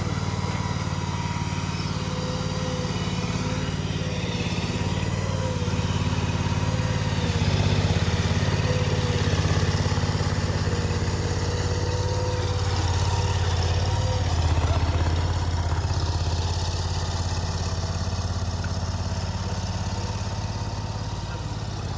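Small engine of a motorized container dolly running steadily as it moves a portable storage container, a little louder around 8 and 15 seconds in.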